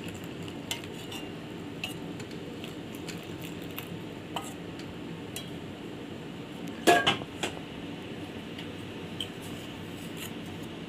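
A steel spoon stirring and clinking in a stainless steel bowl as milk powder is mixed into milk, with scattered small clicks and a louder group of clinks about seven seconds in, over a steady low hum.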